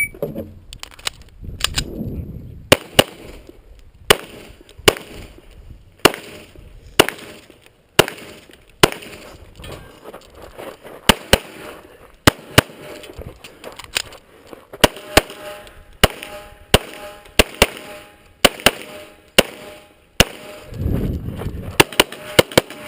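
A 9mm EAA/Tanfoglio Witness Elite Match pistol firing a USPSA stage: some two dozen shots, many in quick pairs, with short pauses between groups as the shooter moves between target arrays.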